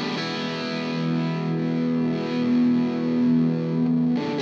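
Electric guitar played through an Amptweaker Fat Rock distortion pedal, switched on. A heavily distorted chord is struck and held, sustaining for about four seconds.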